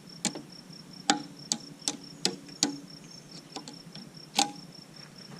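A hammer striking metal: about nine sharp, ringing blows at uneven intervals on the bent nail that serves as the keeper through a backhoe bucket pin, knocking it to work it free. The loudest blows come about a second in and again near four seconds in.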